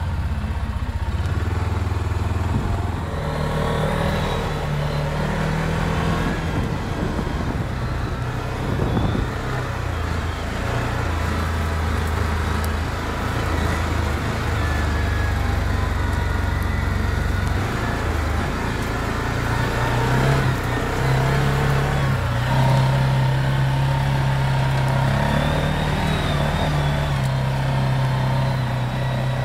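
Four-wheeler's engine running as it drives over rough ground, the engine pitch stepping up and down with the throttle and running higher through the last third.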